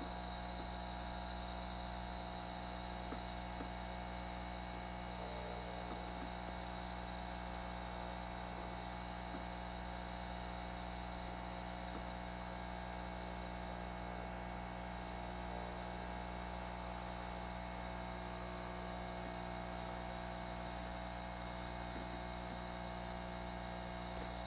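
Steady electrical mains hum with faint hiss, and a few very faint ticks.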